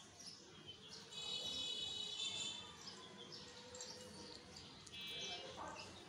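Pet budgerigars chattering: a buzzy warble about a second in and another near the end, with short chirps between.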